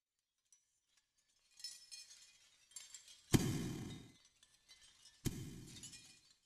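Cinematic sound effects: faint glassy, crystal-like tinkling builds, then two sudden deep hits about two seconds apart, each ringing off for about a second. The first hit is the loudest sound.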